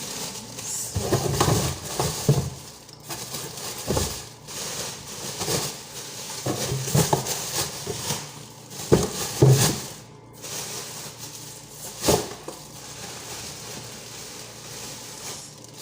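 Groceries being handled: crackly rustling of bags and wrapping, with irregular knocks and thuds as produce is moved and set down, a few sharper knocks standing out.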